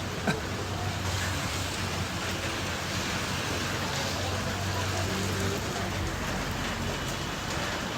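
Steady rain falling, an even hiss of drops, with one sharp tap about a third of a second in.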